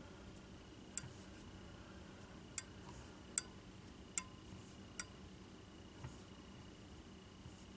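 Five light, sharp clicks at the fly-tying vise, spaced about a second apart and fading away after about five seconds, while fine silver wire ribbing is wrapped around a nymph's body.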